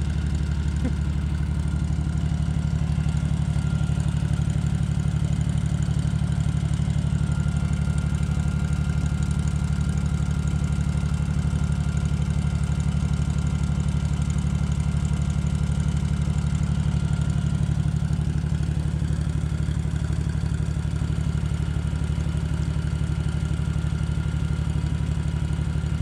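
Farm tractor engine idling steadily at an even speed.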